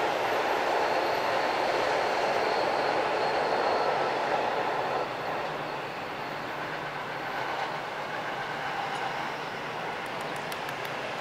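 Electric commuter train running past on the rails, a steady rumble of wheels and motors that is loud for the first five seconds, then drops away as it leaves. A quieter rumble of another train approaching carries on to the end.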